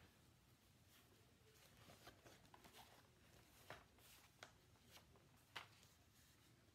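Near silence with faint paper rustles and a few soft clicks from a picture book being handled and held up, the clearest clicks spread over the second half.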